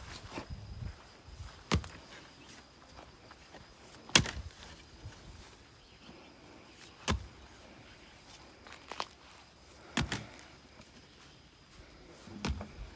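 A hand digging tool striking the ground while a trench for a water pipe is dug by hand: about six sharp strikes, roughly every two to three seconds.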